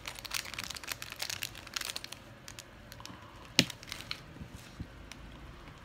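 Small plastic parts being handled: a quick run of light clicks and crinkling, then one sharp snap about three and a half seconds in and a few fainter clicks after it.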